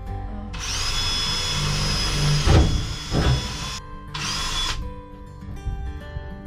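Power drill running in two bursts, a long one of about three seconds and then a short one, drilling a pilot hole at a corner of the roof-fan cut-out. A couple of knocks partway through the first burst.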